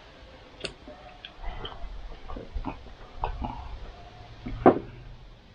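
Eating at a table: chewing and scattered small clicks and taps of fingers on a plate and a glass, with one sharper knock near the end.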